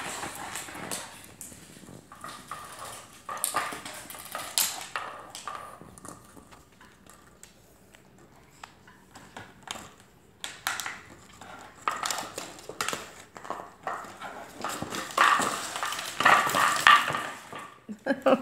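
Empty plastic water bottle crinkling and clattering on a hardwood floor as puppies push and bite at it, in irregular clicks and scrapes that get busier and louder near the end.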